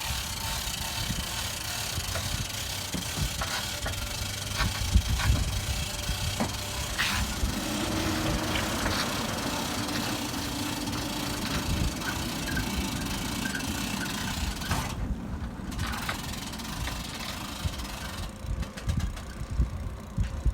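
An engine running, with rattles and knocks; a steadier engine tone comes in for several seconds through the middle.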